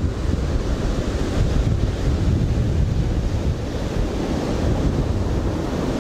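Wind rumbling on the microphone over the steady wash of surf breaking on the beach.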